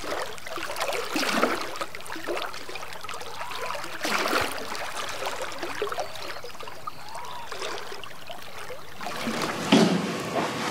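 River water flowing and gurgling at the shore, a steady wash, with one short thump near the end.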